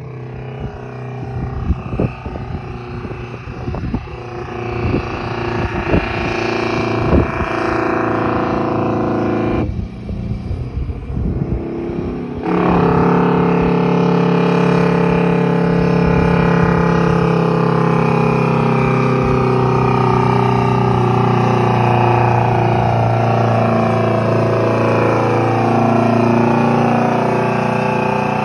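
Detroit Diesel 8V92 two-stroke V8 diesel in a semi-truck pulling under load. It eases off for a couple of seconds about ten seconds in, then pulls hard again, loud and steady. Near the end its pitch shifts as it goes past close by.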